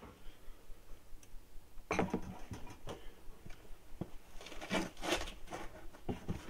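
Soft rustling, scraping and light taps from a person moving about and bending down close by, coming in quick irregular runs that are busiest around two and five seconds in.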